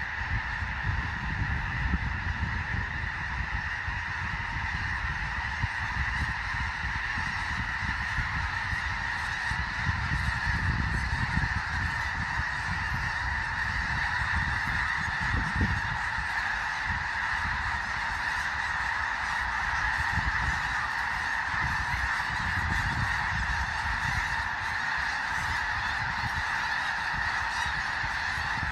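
A huge flock of snow geese calling all at once: a dense, continuous din of overlapping high honks, with a low rumble underneath.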